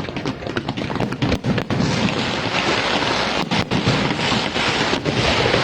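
Aerial fireworks bursting in quick succession, blending into a loud, continuous rumble.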